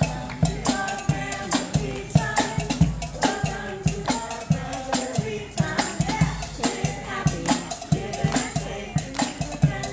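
Brass marching band playing an upbeat tune, with brass and drums and a steady beat about twice a second, with shaken percussion over the top.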